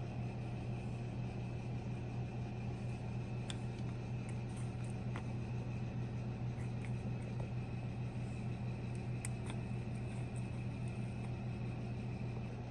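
Steady low mechanical hum, with a few faint light ticks.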